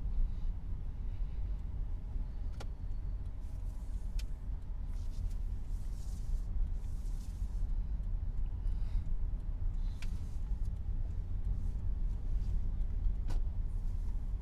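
Car cabin noise while driving slowly: a steady low engine and road rumble, with a few sharp clicks at uneven times and a stretch of louder hiss around the middle.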